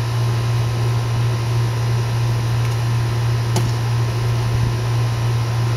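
A steady low hum with an even hiss under it, like a fan or air-handling unit running, and a single short click about three and a half seconds in.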